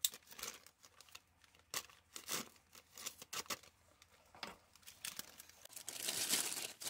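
Plastic packaging of a flameless ration heater bag rustling and crinkling as it is handled, in short scattered crackles with a longer, louder stretch of rustling near the end.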